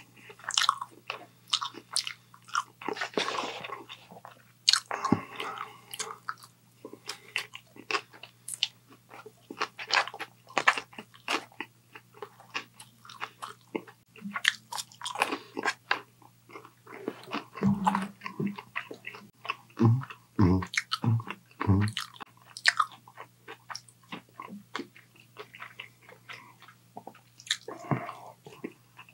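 A person chewing and biting takeout Chinese food close to the microphone, with crunching. A few low thumps come in quick succession a little past the middle.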